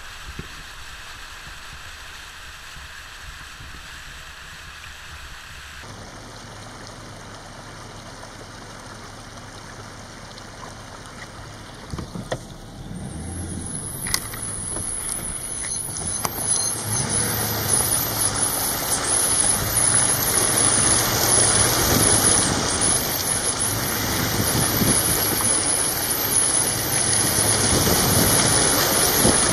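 Pickup truck moving through muddy floodwater on a road, a steady rush of water and tyre splash, faint at first and building to a loud rushing hiss about halfway through.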